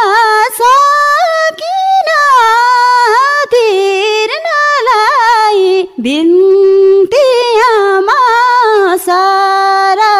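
A high female voice singing a Nepali song solo and unaccompanied, in long, wavering, ornamented phrases with short breaks for breath between them.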